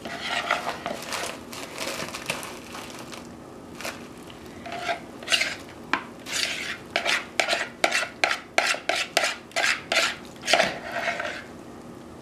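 A metal spoon stirring and scraping a thick creamy mixture in a plastic mixing bowl. From about halfway in comes a quick run of sharp scrapes and taps of the spoon against the bowl, about two a second.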